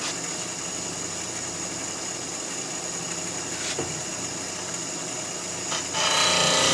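Bench grinder running with a steady whine, with a couple of light clicks as a mild steel blank is laid on the tool rest. About six seconds in the blank meets the grinding wheel and a louder, harsher grinding sound starts.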